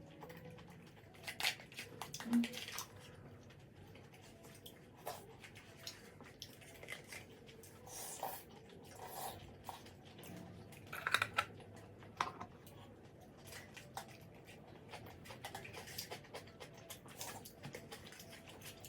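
A person eating braised pork kimchi stew close to the microphone: irregular chewing and mouth sounds with scattered short clicks and taps, the loudest burst about halfway through.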